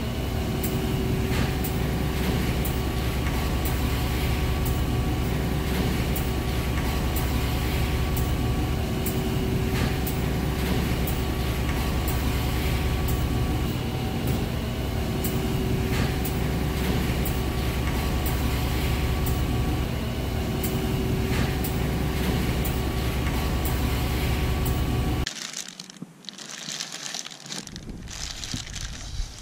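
A machine running steadily with a low hum and a few steady tones, with faint clicks throughout; about 25 seconds in it cuts off to a quieter, uneven sound.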